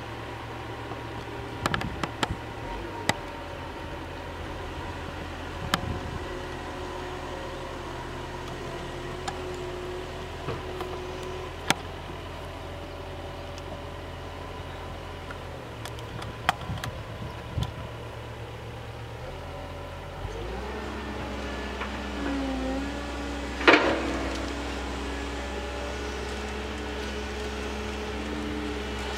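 CAT 309 excavator running with an RDM34EXH disc mulcher: a steady engine and spinning-disc drone whose low end shifts a few times with the load, broken by scattered sharp cracks as the disc strikes wood. The loudest crack comes about three quarters of the way through.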